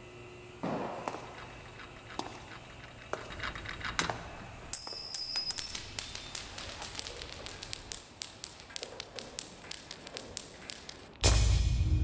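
Loud, rapid metallic clicking and rattling with a high ringing, starting about a third of the way in after a few faint clicks. It cuts off suddenly near the end, and low rumbling music comes in.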